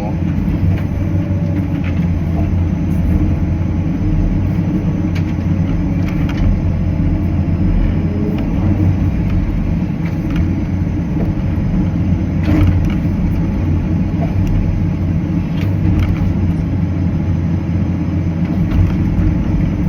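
Cat 325CL hydraulic excavator's diesel engine running steadily under work, with a few short sharp knocks from the machine, the loudest about twelve seconds in.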